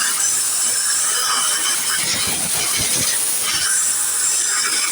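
Compressed air hissing steadily and loudly from an air-hose nozzle pushed into a chainsaw's spark-plug hole, blowing water out of the cylinder.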